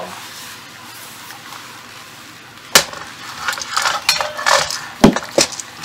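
Handling clatter of hard objects: a sharp click about three seconds in, then scraping and rustling, and two knocks about a second later.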